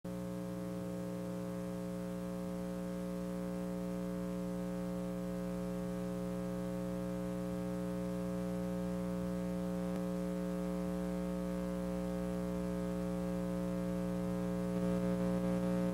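Steady electrical mains hum, a buzzy drone with many overtones, growing slowly louder and stepping up a little near the end.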